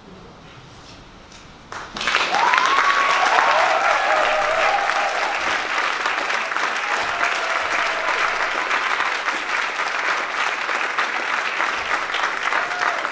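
Concert audience applauding, breaking out suddenly about two seconds in, with shouts of cheering over the clapping.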